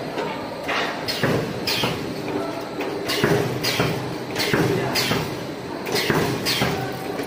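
Automatic CNC wire clothes-hanger forming machine at work: its servo-driven feed and bending head move in quick strokes, each with a short falling whir and a clack, about two a second with uneven spacing.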